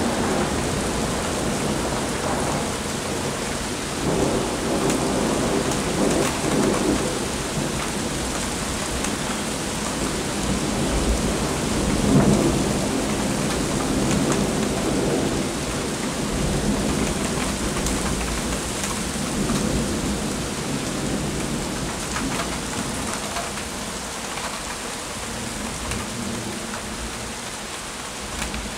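Steady rain falling with thunder rumbling through it. The rumbles swell a few seconds in and are loudest about twelve seconds in, then die away until mostly rain is left near the end.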